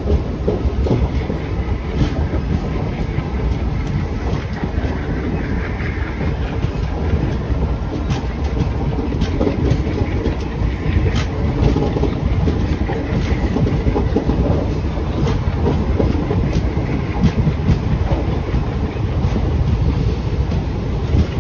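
Passenger train rolling slowly through a station yard, its wheels clicking over rail joints and points over a steady rumble, heard from the doorway of the moving coach.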